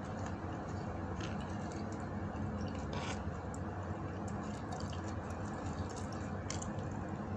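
Close-up eating sounds of fingers picking at rice and fish on a plate: soft wet squishes and scattered small clicks, the strongest about three seconds in, over a steady low hum.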